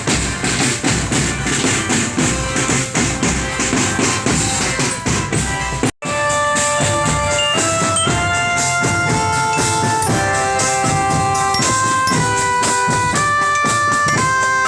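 Marching drum band playing: fast drumming alone at first, then, after a brief cut about six seconds in, a melody of held notes comes in over the drums.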